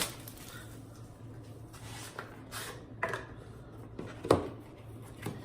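A few sharp clicks and taps from handling card boxes and hard plastic card cases, the loudest just past four seconds in, over a steady low hum.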